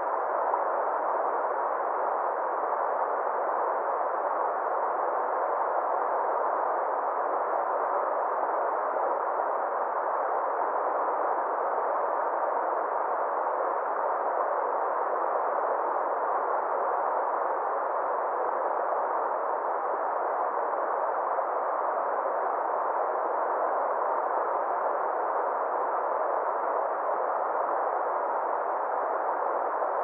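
Steady, even rush of flowing river water, dull and without hiss, unchanging throughout.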